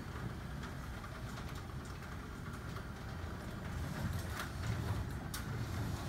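Horizontal side-sliding sectional garage door running closed along its track: a steady low rumble, with a couple of sharp clicks near the end.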